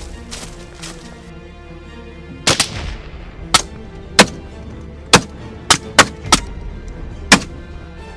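A string of about nine gunshots, sharp cracks coming irregularly, some close together, starting about two and a half seconds in, from hunters shooting at wild hogs at night. Steady background music plays underneath.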